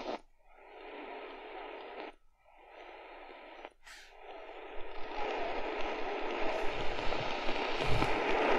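RADIWOW R-108 pocket radio's speaker hissing with medium wave static between stations, with a faint steady whistle through it. The hiss briefly cuts out as the frequency is stepped, twice in the first few seconds, then grows louder from about halfway.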